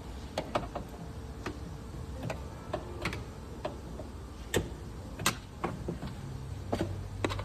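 Irregular sharp clicks and taps of hand work on a car's door mirror assembly, over a low steady background hum.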